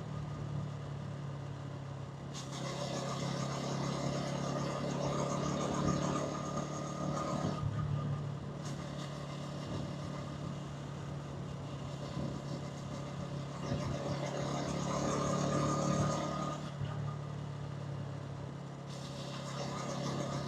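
A Hansom Venett 125cc motorcycle engine runs steadily through its exhaust, heard from the bike as it is ridden in city traffic. Over it, a louder rushing noise of wind and road comes and goes several times.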